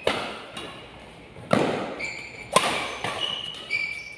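Badminton rackets striking the shuttlecock in a fast doubles rally: four hard hits about a second apart, each echoing in the hall. Short high squeaks of court shoes sound between the later hits.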